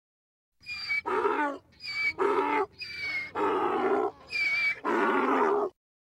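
Donkey braying: four hee-haw cycles, each a short high note on the in-breath followed by a longer, lower note on the out-breath. The bray cuts off abruptly near the end.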